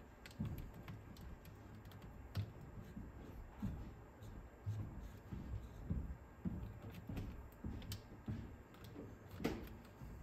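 Irregular small clicks, taps and soft knocks of hands and tools working on a cassette deck's mechanism, with a sharper click near the end.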